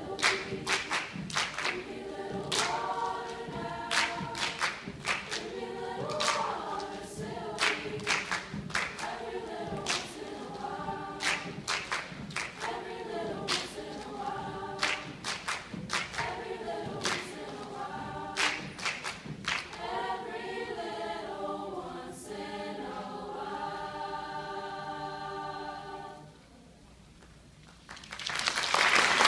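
Mixed choir singing a cappella, keeping time with rhythmic hand claps, then holding a final chord that cuts off about 26 seconds in. After a short silence, audience applause breaks out near the end.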